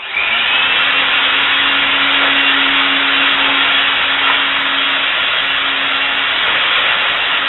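Electric blower starting up and running steadily, blowing dust away: a loud rush of air over a steady motor hum.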